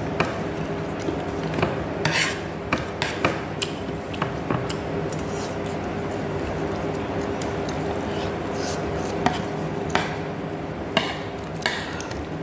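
Wooden chopsticks stirring and picking at noodles in a ceramic bowl: scattered light clicks and clinks against the bowl, with a few short scraping rubs.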